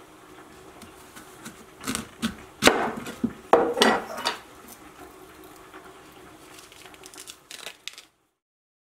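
Kitchen prep sounds: several sharp knocks and clatters of a knife and a metal melon baller on a plastic cutting board as quinces are halved and cored, then softer scraping of seeds out of the fruit. The sound cuts off abruptly near the end.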